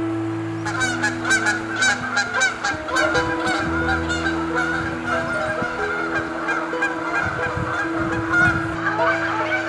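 A flock of geese honking, many short calls in quick succession and overlapping, starting about a second in, over background music with sustained notes.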